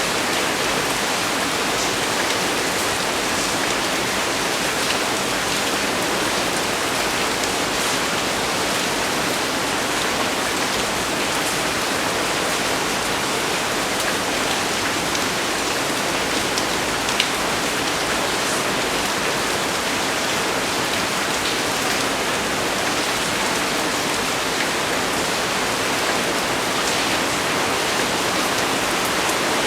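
Heavy rain falling steadily on leaves and ground, an even hiss with occasional sharper drop hits.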